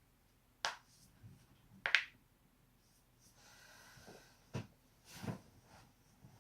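Joints cracking: two sharp pops about a second and a quarter apart, then after a soft noisy stretch two quieter pops.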